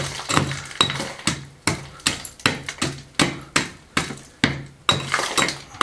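Hand tool striking repeatedly, digging and chipping away rubble and mortar at the base of a stone wall to make room for a stone: a steady run of sharp blows, about two and a half a second, some with a brief ring.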